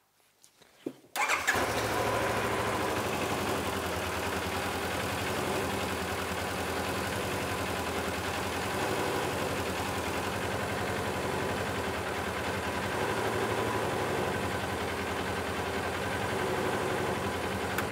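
Polaris RZR 900XP's 875 cc parallel-twin engine cranking and starting about a second in, then idling steadily until it is shut off at the very end. This is a short run on fresh oil to fill the new oil filter.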